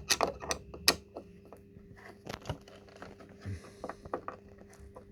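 Small parts of an espresso machine being handled and screwed back together: a quick run of clicks and knocks in the first second, then scattered small clicks, over a faint steady hum.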